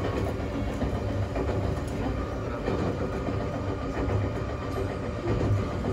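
Steady running noise of a Romancecar electric train under way, heard from inside its front observation cabin: a continuous low rumble of wheels on rail.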